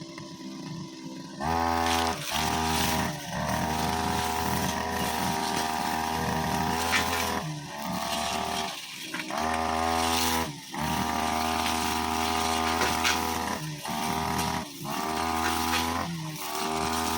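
OGAWA brushcutter engine running at full throttle in bursts. It is quieter for about the first second and a half, then opens up, with short dips in revs between bursts as the throttle is eased and reopened.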